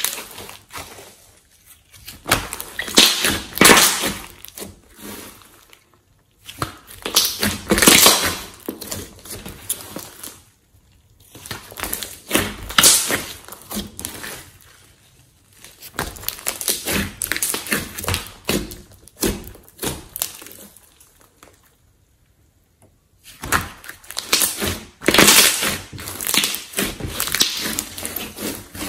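Hands squeezing, stretching and folding a large mass of slime: squishing with crackling and popping as trapped air bursts. It comes in about five bursts with short quiet pauses between them.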